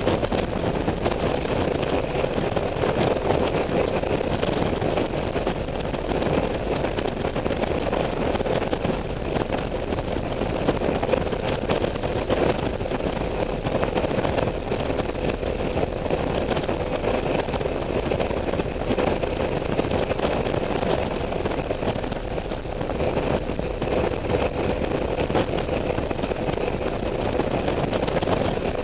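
Honda Silver Wing maxi-scooter riding at a steady cruising speed: engine running evenly under wind and tyre noise, with a steady hum held throughout.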